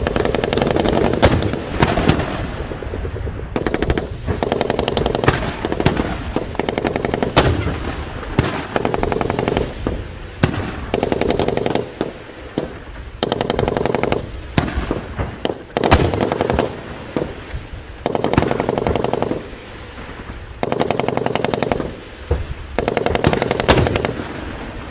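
Automatic machine-gun fire in repeated bursts of rapid shots, each a second or a few seconds long, with short pauses between them.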